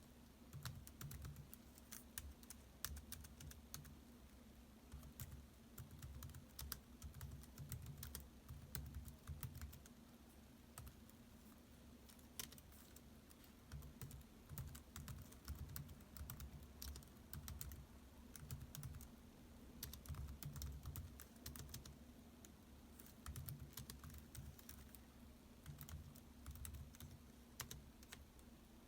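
Laptop keyboard typing: quick runs of soft key clicks that come in bursts with short pauses between them, over a faint steady low hum.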